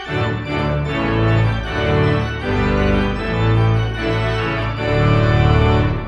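Instrumental end-card music: full held chords that change about once a second over a strong bass line.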